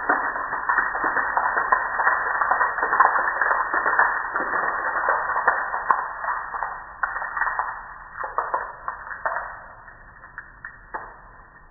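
Water spray spattering against a window and stone wall: a dense crackle that thins out after about seven seconds into scattered drips and clicks.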